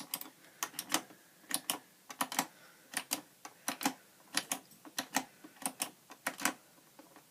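Irregular sharp clicks, singly and in quick clusters of two or three, with no motor hum: a Hoover vacuum cleaner failing to start.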